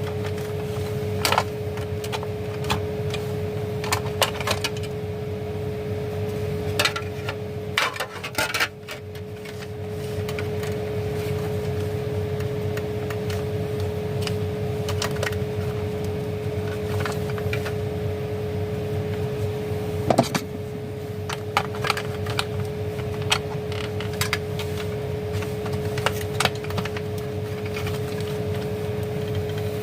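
Scattered clicks and knocks of hard plastic parts and small tools being handled while an emergency light's casing is opened up, over a steady background hum with one constant tone.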